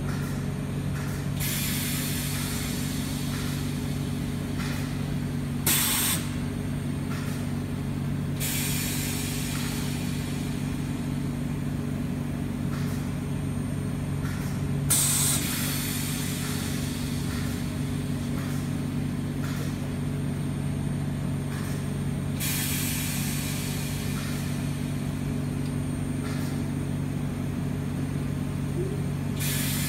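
Oxygen-fed ozone generator setup running with a steady low machine hum, and long stretches of hissing that come and go, with two short, sharper hisses about six and fifteen seconds in.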